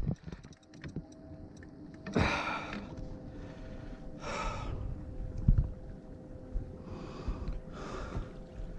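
A man breathing hard, out of breath from the strain of fighting a large fish: four heavy, noisy breaths a couple of seconds apart.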